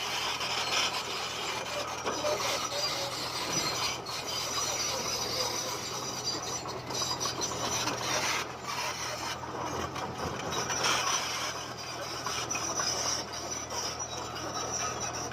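Komatsu D20P bulldozer at work: its diesel engine running steadily under a continuous grinding, scraping noise of the blade and tracks pushing stone.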